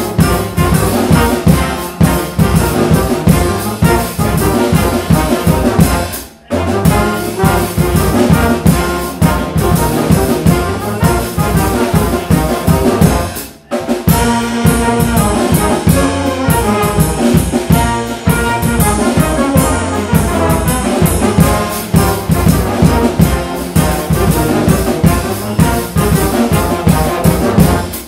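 A small brass band with drum kit plays a lively piece together: trumpets, trombones and tuba over the drums. The whole band stops for a moment twice, about six and a half and thirteen and a half seconds in, and comes straight back in.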